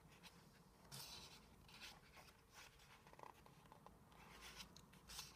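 Faint rustling of paper pages being turned in a square-bound softcover program, a few brief rustles, the clearest about a second in and near the end.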